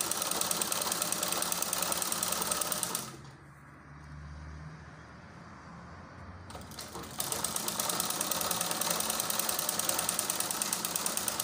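Manual treadle sewing machine stitching a hem: a fast, even clatter of the needle mechanism that stops for about four seconds a few seconds in, then starts again and runs on.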